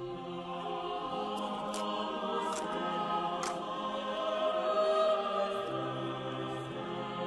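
Background music with slow, sustained choir-like voices, with short clicks now and then.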